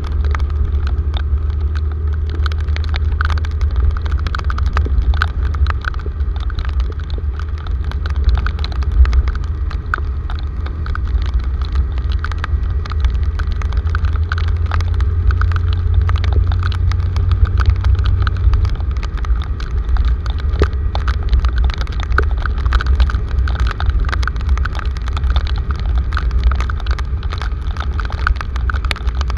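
Car driving in heavy rain, heard from inside the cabin: a steady low road and engine rumble under dense, irregular ticking of raindrops striking the car.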